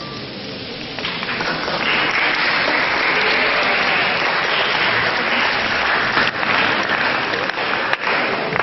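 Audience applause starting about a second in and holding steady, greeting the violinist and pianist as they come on stage, with a couple of sharp knocks in the later part.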